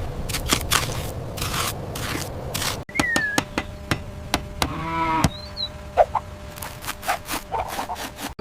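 Sharp clicks and taps over a noisy background, then, after an abrupt cut about three seconds in, farm animal calls: a short chirp, a pitched livestock call lasting under a second about five seconds in, and a high chirp, among more scattered clicks.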